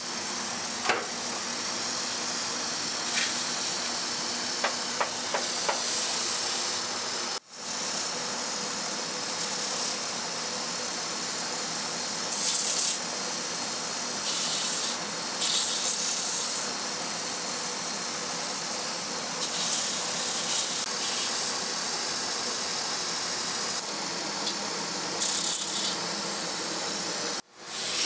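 Motor of a shoemaker's abrasive-wheel finishing machine running with a steady hum. A leather-covered high heel is pressed to the spinning wheel for repeated short sanding passes, each a hiss of about a second.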